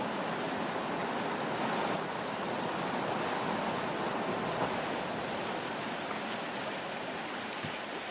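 River water rushing steadily as it spills over a small weir, an even rushing noise.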